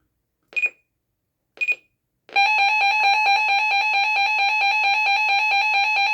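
Reecom R-1650C weather radio: two short beeps from its keys, then about two seconds in its alert tone starts, a loud, rapidly pulsing high tone, sounding with the volume set all the way to the max.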